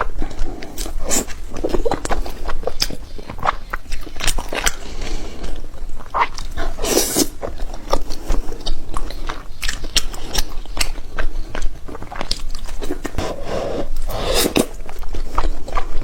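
Close-miked eating of spicy seafood: a person biting and chewing, with irregular sharp clicks and mouth noises and a few louder bites.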